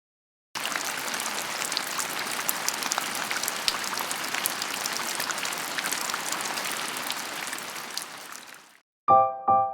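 Fish cake skewers sizzling: a steady crackling hiss full of small pops that starts suddenly about half a second in and fades away near the end. Electric piano notes start just before the end.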